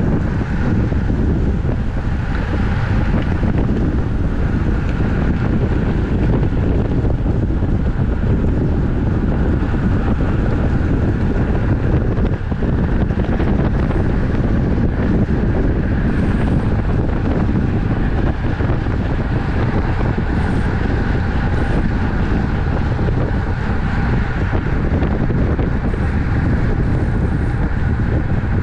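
Steady wind rushing over the microphone of a camera mounted on a racing bicycle at speed, with the bike's road noise underneath.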